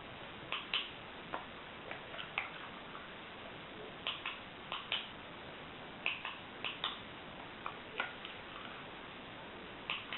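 A dog's short, clicking sniffles, coming in quick pairs and little clusters every second or two.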